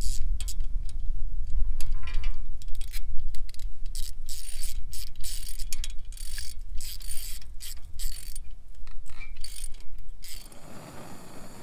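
Socket ratchet clicking in quick runs as nuts are snugged down on the knife sections of a sickle bar mower, stopping near the end.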